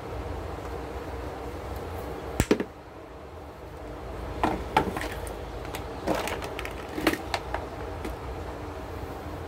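A few short knocks and clicks, the loudest about two and a half seconds in, from colouring markers being picked up and handled on a wooden desk, over a steady low hum.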